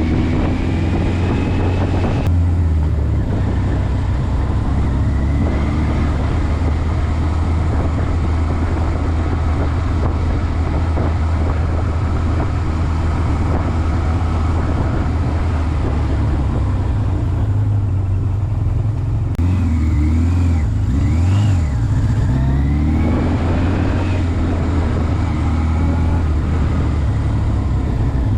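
Motorcycle engine running while riding, under a steady low rumble; its pitch climbs and drops several times as it speeds up and slows.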